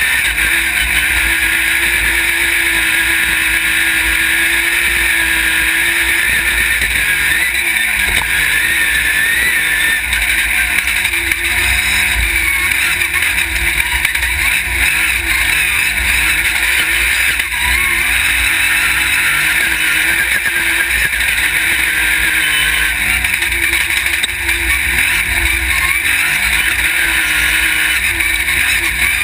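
Off-road racing buggy's engine running hard on a dirt course, heard onboard. Its pitch rises and falls again and again with throttle and gear changes, over a steady loud rush of noise.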